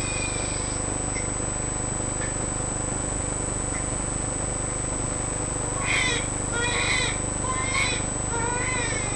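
A two-month-old baby making about four short, high-pitched squeaky breath sounds in the last third: the inspiratory stridor of a narrowed upper airway. A steady background hiss with a thin high whine runs underneath.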